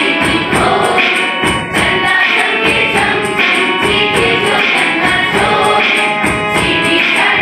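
A group of young voices singing a song together as a choir, over a steady, quick percussion beat.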